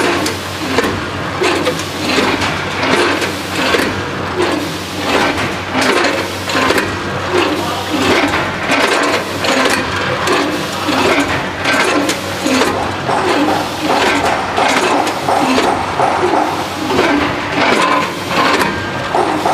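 Multihead weigher running: the clatter of corn puff snacks feeding through its stainless-steel pans and weigh hoppers, with hopper gates clacking in a quick regular rhythm over a steady machine hum.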